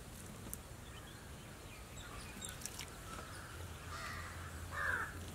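A bird calls three times in the second half, short calls with a slight downward bend, the last one the loudest. Underneath are faint rubbing and small clicks from hands mixing a crumbly flour-and-spice mixture on a steel tray.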